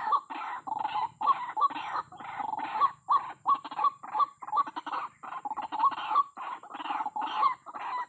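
White-breasted waterhen (ruak-ruak) calling in a rapid run of repeated clucking calls, about three a second.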